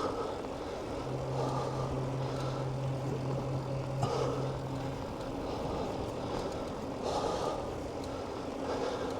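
Motor traffic passing a moving bicycle: steady road noise that swells several times as vehicles go by, with a low engine hum from about a second in that stops after about four seconds.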